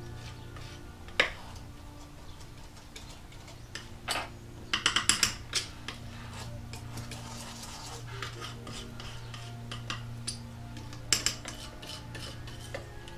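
Metal palette knife scraping and clicking against a tile while black pigment is mulled into a watercolour paste. The strokes come in short bursts, with a quick run of clicks about five seconds in and a few more near the end, over soft background music.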